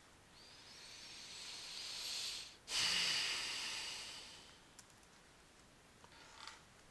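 A long breath close to the microphone: drawn in and growing louder for about two seconds, then breathed out more loudly and fading away. A few faint keyboard key clicks follow near the end.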